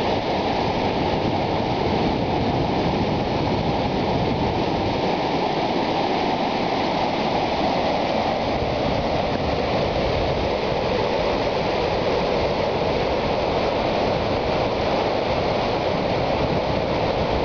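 Muddy flash-flood water surging down a dry desert streambed: a steady, loud rush of churning water.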